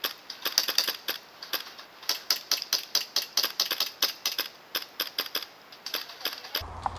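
Airsoft gun firing rapid single shots: a fast run of sharp, snappy clicks at about four a second that stops near the end.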